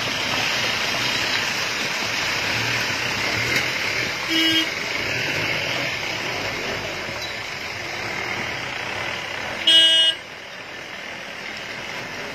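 A steady rushing noise of rock and soil sliding down a landslide slope. A vehicle horn sounds briefly about four seconds in, and louder about ten seconds in; the rushing drops away after the second horn.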